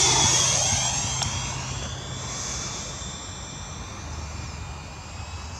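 Electric ducted fan of a Freewing MiG-21 radio-controlled jet whining as the model flies past low and fast. The whine is loudest at the start, drops in pitch as it passes, then fades as the model moves off.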